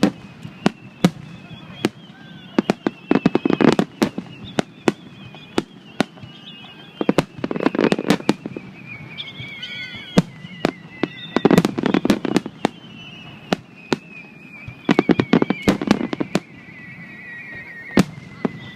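Aerial fireworks bursting: every four seconds or so comes a cluster of rapid sharp cracks and bangs with a low rumble under it. A faint high tone slides slowly down in pitch throughout.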